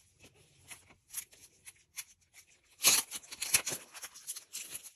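Sealed paper photocard packs being picked up and handled: scattered light rustles and taps of paper, with a louder burst of crisp rustling about three seconds in.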